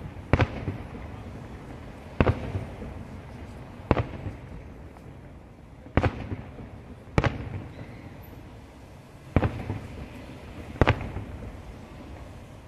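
Aerial firework shells bursting overhead: seven sharp booms one to two seconds apart, each trailing off in a short rumbling echo.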